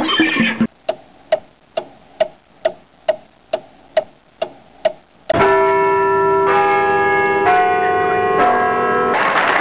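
A clock ticking about twice a second, ten ticks, followed by a clock chime of four bell notes about a second apart that ring on over each other. Crowd noise cuts in right at the end.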